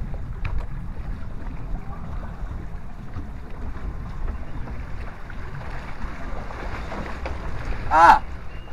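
Log flume boat gliding along its water channel: a steady rumble of rushing water and wind on the microphone. About eight seconds in, a rider gives one short shout, "Ah!", the loudest sound.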